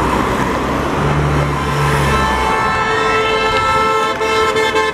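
Race-convoy cars passing close by at speed, engine and tyre noise. About two seconds in a horn starts and holds one steady note for nearly three seconds, stopping suddenly at the end.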